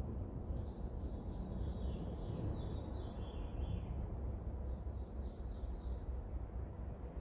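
A songbird singing high, quick runs of notes: a series stepping downward from about half a second in, then higher trills in the second half. Under it runs a steady low rumble.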